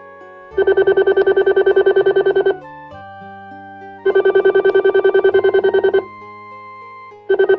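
Electronic desk-telephone ring: a fast trill of about ten pulses a second in bursts of about two seconds. It rings twice, and a third ring starts near the end, over soft background music.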